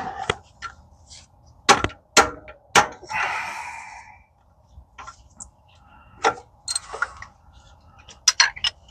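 Metal hand tools clinking and knocking as they are handled: a string of separate sharp clicks and clanks, with a short rustle about three seconds in.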